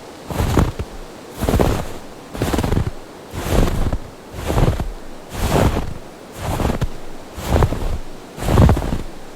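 Footsteps crunching through snow at a steady walking pace, about one step a second, over a steady background hiss.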